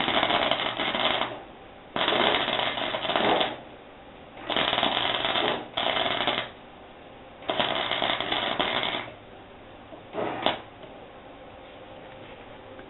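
Flux-core wire-feed welder with .030 wire and no shielding gas, crackling in six short bursts of about a second each, one for each plug weld on sheet steel. The last burst is the shortest.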